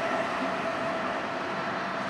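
DB class 101 electric locomotive and its passenger coaches running away from the listener. The rolling noise slowly fades, and a whine from the locomotive dies away at the start.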